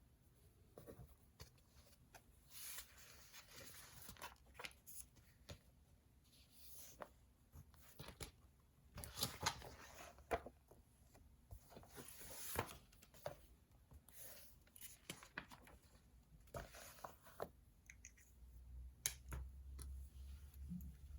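Faint desk sounds of someone studying: pen writing on paper, short rustles and swishes of paper, and scattered small taps and clicks at irregular moments.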